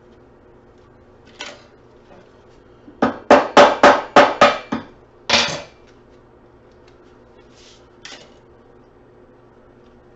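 Quick run of sharp metal knocks, about seven in under two seconds, then one more, as a small transformer is worked apart with hand tools on a workbench; a few fainter clicks come before and after.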